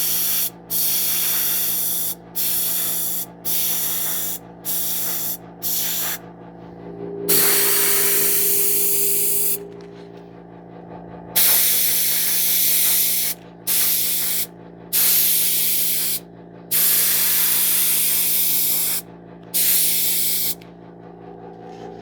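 Airbrush spraying paint in about a dozen on-off bursts of hiss, short quick passes at first, then longer ones of one to two seconds, over a steady low hum.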